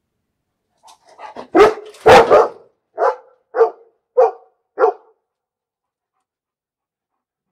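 A dog barking: a couple of faint sounds, then two loud barks, the second one longer, followed by four shorter, evenly spaced barks that stop about five seconds in.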